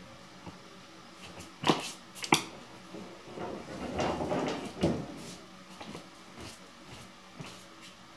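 An interior door being handled in a small room: two sharp knocks about half a second apart, a softer rustling stretch, then another sharp knock near the end.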